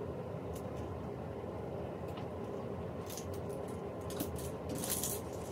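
Clothes and hangers being handled on a closet rail: light rustling and clicks, loudest between about three and five seconds in, over a steady low background hum.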